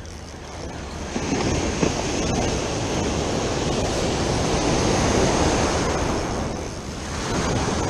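Ocean surf breaking and washing up the beach at the water's edge, a steady rushing that swells about a second in and eases off near the end.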